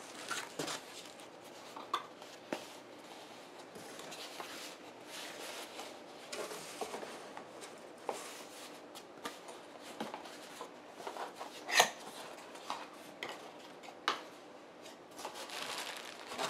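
Cardboard packaging being handled: cardboard rubbing and scraping, plastic wrap crinkling, and scattered light knocks as items are moved inside a box, with one sharper knock about twelve seconds in.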